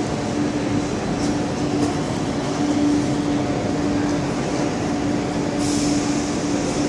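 Railway station platform ambience: a steady electric hum over a low rumble, with a short hiss about five and a half seconds in.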